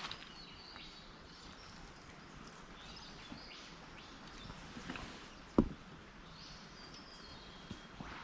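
Quiet outdoor bush ambience with birds calling now and then, high and brief. A single sharp thump a little past halfway is the loudest sound.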